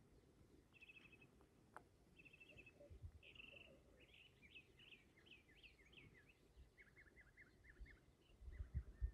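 A small songbird singing faintly: a couple of short buzzy trills, then a quick string of down-slurred notes and a lower run of repeated notes. Footsteps on the trail come in near the end.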